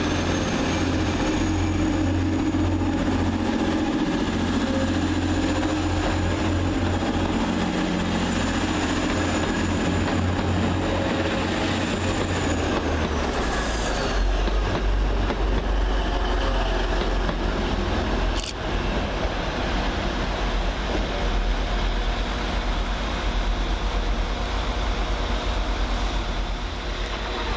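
Two coupled Class 185 diesel multiple units running their engines, with a steady low drone and a high thin whine. About halfway through, the engine note drops lower and the whine glides down. One sharp click comes about two-thirds of the way in.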